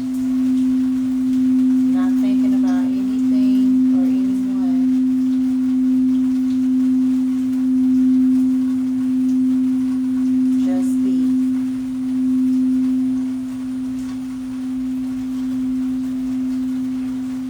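Singing bowl sounding one sustained low tone, its loudness swelling and ebbing about once a second as it is played, easing off near the end.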